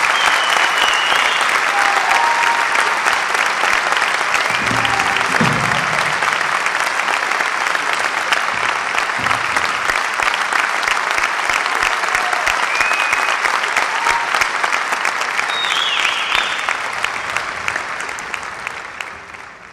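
Large audience applauding a folk dance ensemble's bow, with a few short whistles above the clapping. The applause fades out near the end.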